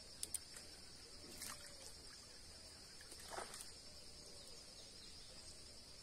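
Faint outdoor ambience: insects droning steadily at a high pitch, with a couple of small clicks near the start and a soft swish about three and a half seconds in.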